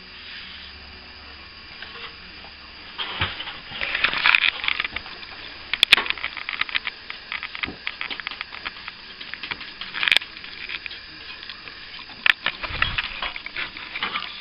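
Irregular scraping and sharp clicks of hand tools working on plaster. The scraping is densest a few seconds in, and single sharp clicks follow at intervals.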